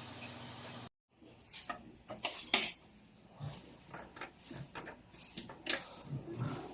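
A steady hiss cuts off about a second in. Then come irregular clicks and knocks of things being handled, the sharpest about two and a half seconds in.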